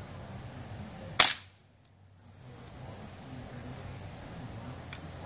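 A single sharp shot from a BB gun about a second in, over a steady background of crickets and insects buzzing.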